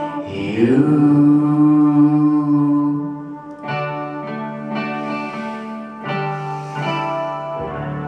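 Soft ballad backing music playing its closing bars: a long held note that slides up into place about half a second in, then two sustained chords a little over two seconds apart, the music getting softer toward the end.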